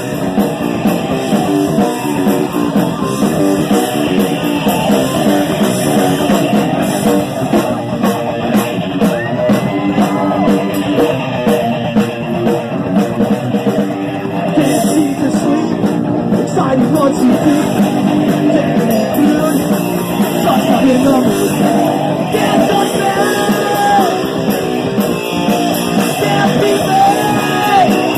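Live heavy rock band playing loud distorted electric guitars and bass, with a singer at times.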